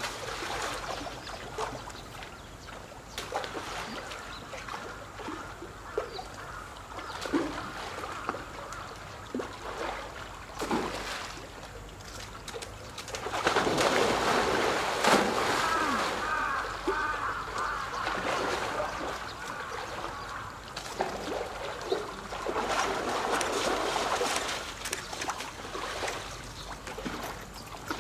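Polar bears swimming and splashing in a pool, the splashing loudest about halfway through, with birds calling.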